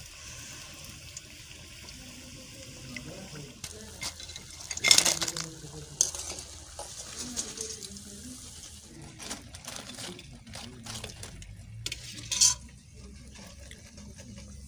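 Hot oil sizzling in a kadai as deep-fried potato wedges are lifted out with a wire spider skimmer, with scrapes and clinks of the skimmer against the pan. Two louder clatters, about five seconds in and near the end.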